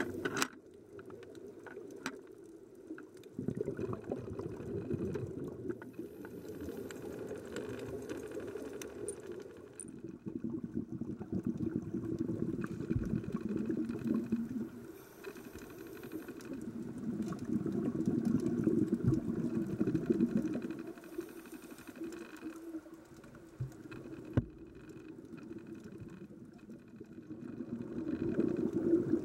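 Scuba diver's exhaled bubbles from the regulator, heard underwater as a muffled bubbling that swells and fades every several seconds.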